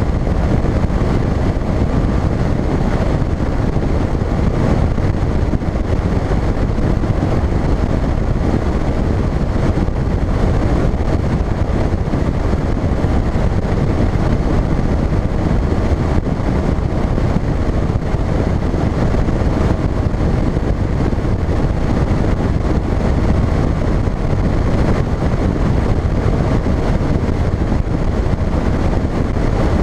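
Bass boat running at speed: a steady, loud rush of wind buffeting the microphone over the drone of the outboard motor and the hull on the water.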